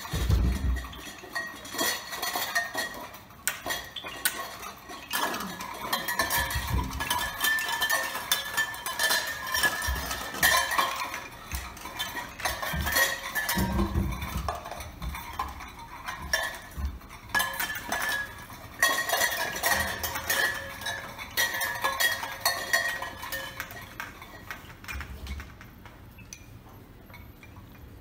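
Hanging metal cans, plastic cups and wooden dowels on a PVC-pipe puppy adventure box clattering and clinking as puppies knock into them. An irregular jumble of knocks and ringing clinks that dies down near the end.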